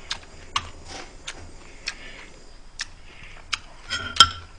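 Metal spoon clicking against a small ceramic bowl, about seven sharp, irregular clicks, the loudest near the end.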